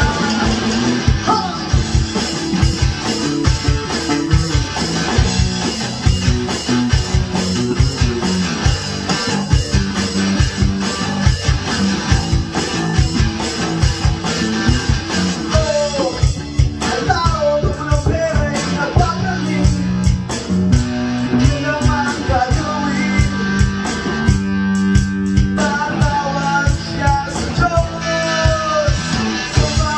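A live band playing a rock song: male lead vocals over electric guitar, acoustic guitar, electric bass and an electronic drum kit keeping a steady beat.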